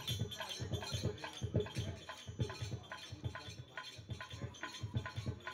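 Dholak drum keeping a quiet, steady rhythm of quick low beats, about four to five a second, between sung lines.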